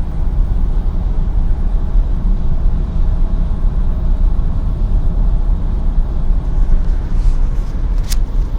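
Skoda Octavia III being driven, heard from inside the car: a steady low rumble of engine and road noise, with a sharp click near the end.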